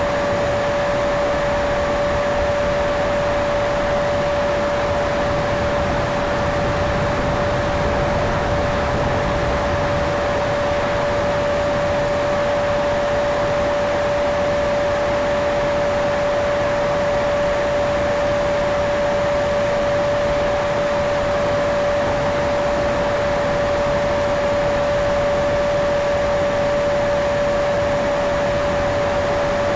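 Electric ducted fan of a Freewing F-35 RC jet running at steady throttle in flight, a single steady whine over rushing air noise, heard from an onboard camera.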